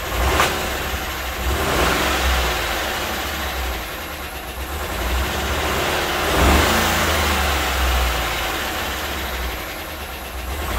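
Chevy 5.3-litre V8 running rough and pretty loud, still noisy after its collapsed AFM lifters were freed with an air trick; the owner doubts a bad lifter alone would make that kind of noise. The revs rise briefly about six and a half seconds in.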